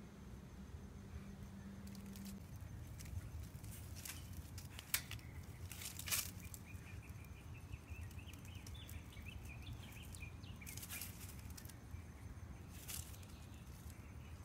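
Quiet outdoor background with a steady low rumble, a few short clicks and rustles, and a faint wavering high call between about six and eleven seconds in.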